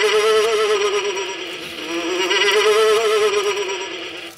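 Halloween Factory animated scarecrow's sound chip playing a buzzy electronic tone that warbles quickly, dipping slightly in pitch around the middle and rising back.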